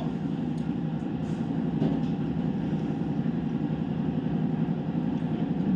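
Steady low rumbling background noise, with a few faint ticks over it.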